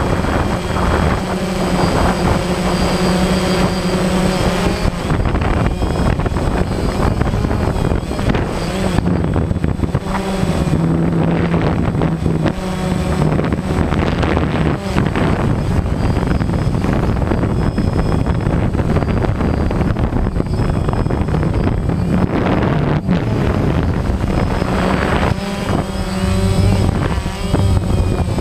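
Small drone's electric motors and propellers buzzing steadily, heard up close from its onboard camera, the pitch drifting a little up and down with the throttle.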